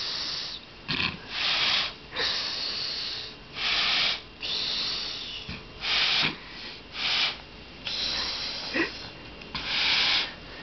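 A man breathing hard through his nose to inflate a latex glove stretched over his head: about a dozen loud, hissing snorts and breaths, with short pauses between them in an irregular rhythm.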